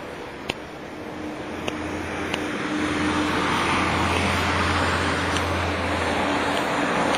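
Road vehicle noise growing louder about two seconds in and then holding steady, with a low engine hum, as a motor vehicle passes close by. Three sharp clicks come within the first two and a half seconds.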